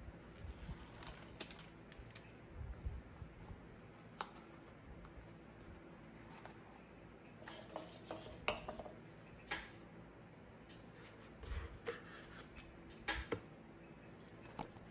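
Hands working a liner into a koozie shell bent from a metal license plate: scattered light rubbing, scraping and small clicks, a few sharper taps coming in clusters, over a faint steady hum.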